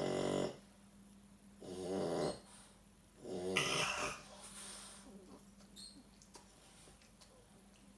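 A dog snoring: three snores about a second and a half apart, the third longer and breathier, then quieter breathing for the second half.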